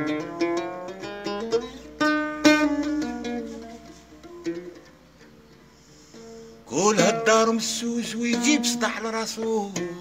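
Algerian chaabi mandole played solo, picking a melodic line with ringing notes. It dies down to a soft pause about four seconds in, then comes back loudly about seven seconds in with strummed chords and a sliding voice joining in.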